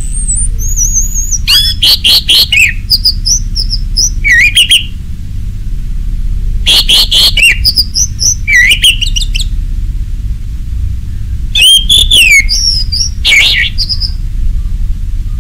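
Orange-headed thrush singing in full voice: three bursts of rapid, varied whistled phrases with sharp notes and gliding slurs, each a few seconds long with short pauses between. A steady low hum runs underneath.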